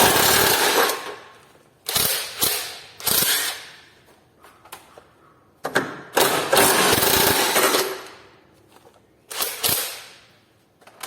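Ratchet wrench on a 19 mm socket being worked on a suspension control-arm bolt, in five bursts of rapid clicking with short pauses between.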